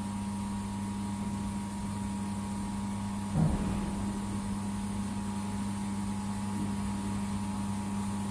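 Laser welding machine and its cooling unit running with a steady electrical hum and a faint high tone, broken by one short sound about three and a half seconds in.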